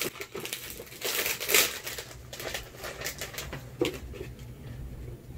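A perfume presentation box being handled and opened by hand: scattered rustles, scrapes and small clicks of the packaging, loudest about a second in.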